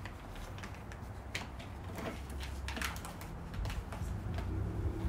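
A few scattered light clicks and taps from a plate and kitchenware being handled on a steel worktable, over a low steady rumble.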